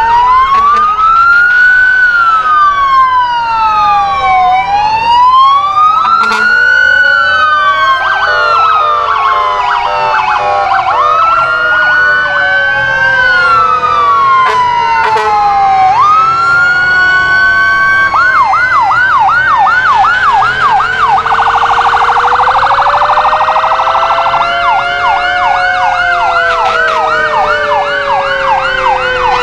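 Several fire apparatus sirens sounding over one another. Electronic wails rise and fall about every two seconds, with fast yelping warbles taking over in the latter part and a lower siren slowly winding up and back down beneath them.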